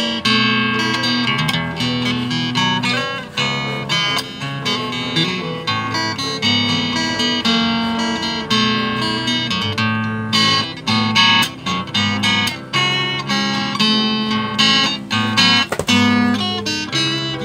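Legend cutaway acoustic-electric guitar played through an amplifier: picked melody notes and quick runs over ringing bass notes.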